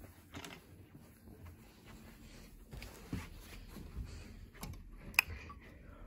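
Faint footsteps on carpet and camera handling rustle, with one short sharp click about five seconds in.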